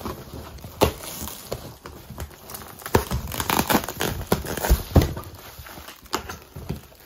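Black plastic wrapping and packing tape crinkling and tearing as a taped cardboard box is pulled open by hand, with a string of sharp cracks and knocks, the loudest about 1, 3 and 5 seconds in.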